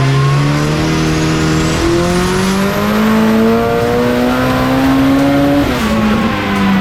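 Turbocharged four-cylinder engine of a Mitsubishi Lancer Evolution time-attack car under load, climbing steadily through the revs in one long pull for about five seconds, with a high whine rising with it. Near the end the revs drop suddenly as the throttle lifts.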